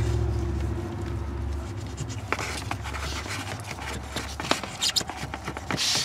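A coaxial cable is pushed and worked into a hole in wooden siding through a trim grommet, giving short scraping and rubbing noises with a few clicks; it is not feeding through easily. A low hum fades out in the background about three seconds in.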